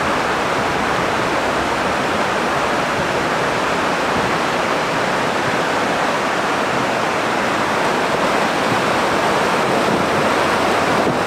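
River water rushing over a shallow, rocky riverbed: a steady, even rush.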